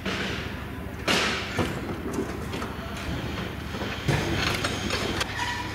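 Metal ride parts clanking and knocking as a funfair ride is dismantled, with sharper knocks about a second in and about four seconds in, over a steady low hum of machinery.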